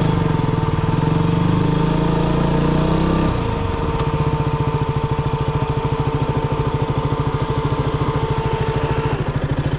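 KTM Duke motorcycle engine running under the rider. Its note is higher for about the first three seconds, then drops to a steady, lower, even beat at low speed.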